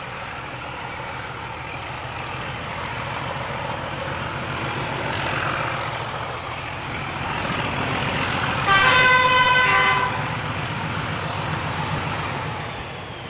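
Diesel locomotive approaching under power, its engine running steadily and growing louder. It sounds its horn once, a chord lasting a little over a second about nine seconds in.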